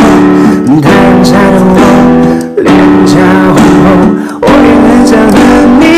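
Background music: a Mandarin pop song with acoustic guitar and a singing voice.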